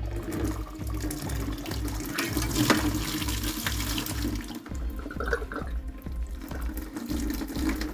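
Water spilling and splashing out of an Oras water mixer as its housing is unscrewed, strongest in the first half and then easing off.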